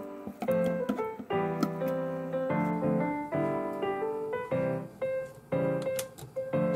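Background piano music: a steady run of chords that change about every half second, with a few faint clicks over it.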